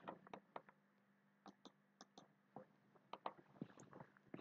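Near silence: room tone with a dozen or so faint, irregular small clicks.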